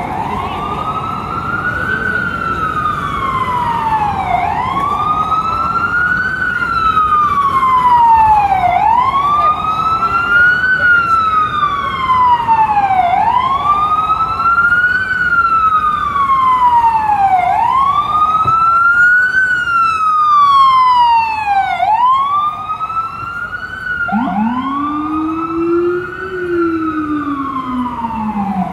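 Emergency-vehicle siren in a slow wail, rising and falling about every four seconds, over steady street traffic noise. Near the end a second, lower-pitched siren joins, winding up and down.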